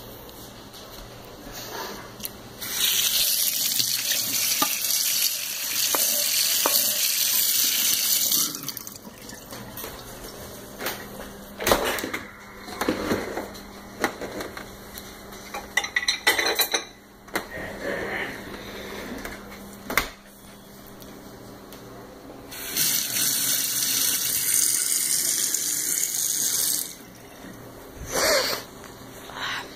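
Kitchen tap running into the sink twice, once for about six seconds and again for about four seconds near the end. In between come scattered knocks and clatter of dishes being put into a dishwasher rack.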